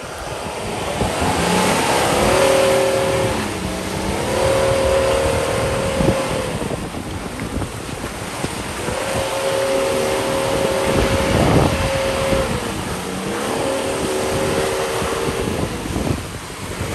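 Toyota Land Cruiser 300's 3.3-litre twin-turbo diesel engine revving. Its pitch is held steady, then dips and climbs back. This happens twice, over a constant rush of wind and rumble.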